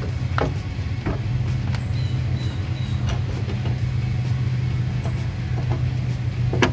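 A motor vehicle's engine idling steadily with a low hum, over light metal clicks and taps from a bolt being worked by hand into a steel tailgate hinge bracket.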